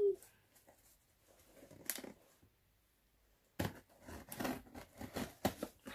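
Cardboard box being worked open by hand: a single click about two seconds in, then a quick run of scraping and rustling of cardboard from about three and a half seconds on.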